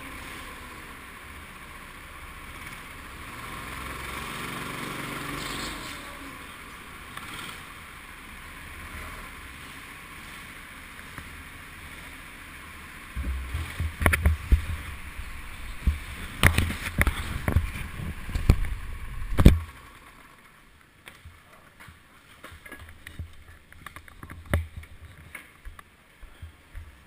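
Go-kart ride heard through a helmet-mounted action camera: a steady rush of the kart running, then a run of loud knocks and thumps for several seconds in the middle. The sound drops away near the end as the kart comes to a stop, leaving a few scattered small knocks.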